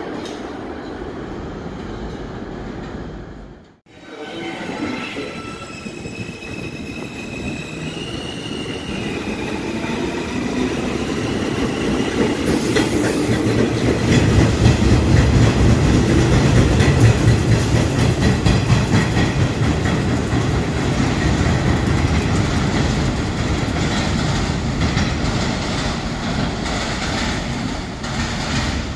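New York City Subway R160 train running on elevated tracks. A stepped, rising electric motor whine comes as it gets moving a few seconds in. Then the rumble and wheel clatter swell to a peak around the middle and slowly fade, after a brief break in the sound a few seconds in.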